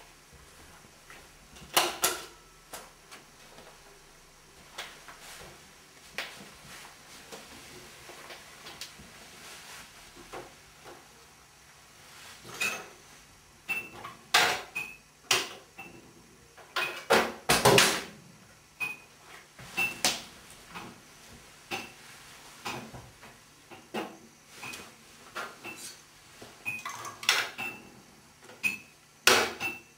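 Irregular clatter of small hard items in a bathroom cabinet: clicks and knocks of bottles and toiletries being handled, with short bright pings among them.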